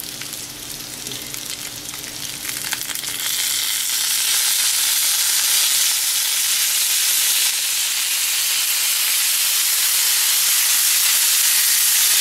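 Teriyaki sauce sizzling in a hot pan of pan-fried pot stickers, a crackling hiss that grows louder about three seconds in and then holds steady as the sauce cooks down.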